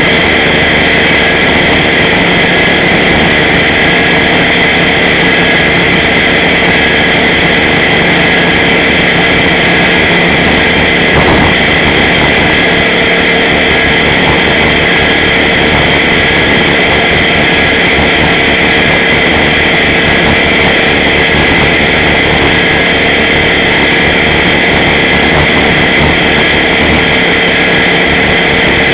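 Align T-Rex 500 electric RC helicopter's motor, gears and rotor running steadily in flight, a loud high whine heard from the camera on board. A brief click about eleven seconds in.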